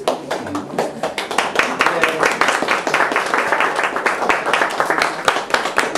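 Hand clapping from a small group of people, a dense patter of claps starting just after the beginning, with voices talking through it.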